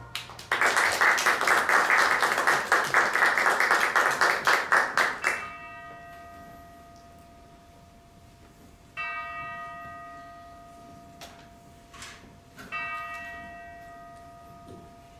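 Audience applause for about five seconds, stopping suddenly. Then a church bell tolls three times, each stroke about three and a half seconds apart and ringing on between strokes.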